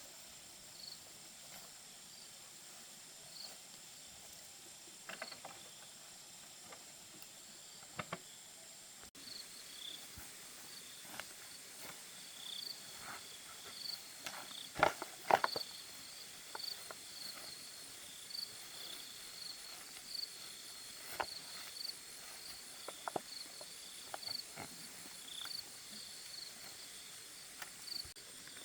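Forest insects keeping up a steady high drone, joined about a third of the way in by a quick, repeated high chirping call. Scattered knocks and crackles of handling or stepping sound throughout, with two sharper knocks near the middle.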